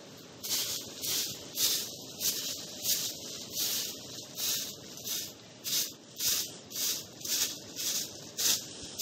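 Short hand-held grass broom sweeping dry leaves across bare dirt, in regular brisk swishes about one and a half a second.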